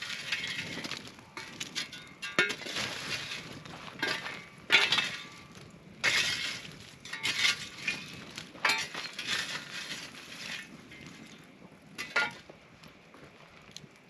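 A long-handled tool raking and jabbing burning wood and coals in a rock fire ring: repeated crunching, scraping strokes about a second apart, with sharp clinks of embers and stone. The strokes stop about twelve seconds in.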